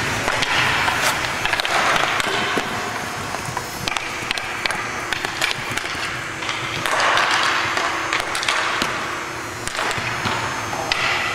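Hockey play on the rink: skates running over the surface in stretches of noise that swell and fade, with sharp clacks of sticks and puck scattered throughout.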